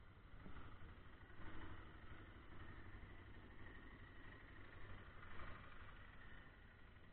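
Arctic Cat two-up ATV engine idling faintly, a steady low hum.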